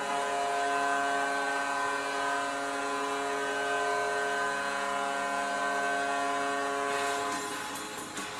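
Vancouver Canucks goal horn sounding one long, steady blast of several pitches at once, fading out about seven seconds in.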